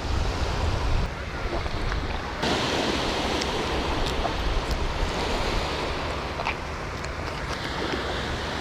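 Surf washing onto the beach, a steady hiss that grows brighter about two and a half seconds in, with wind rumbling on the microphone.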